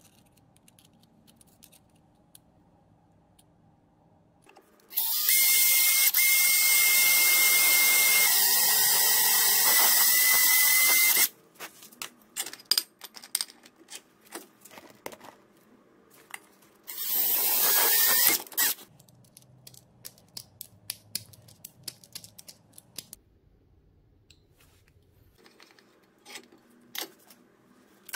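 Power drill running a hole saw, cutting into a plate clamped in a bench vise. It runs in two bursts, the first about six seconds long with a steady high whine, the second short. Scattered clicks and knocks of handling the tool and the cut piece follow.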